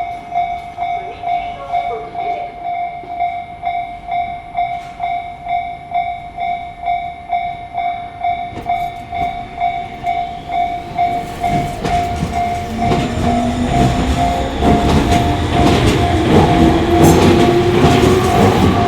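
Japanese level-crossing warning bell ringing steadily at about two strikes a second. From about twelve seconds in, an electric commuter train approaches and passes, its rumble and a rising motor whine growing louder over the bell.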